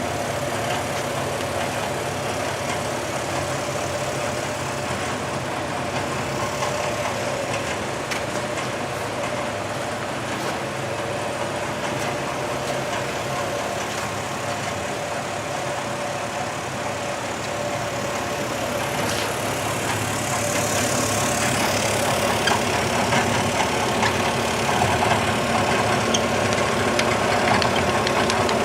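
Startrite 20-inch vertical bandsaw running, a steady motor and blade hum with a constant pitch. The sound grows louder and busier about two-thirds of the way through.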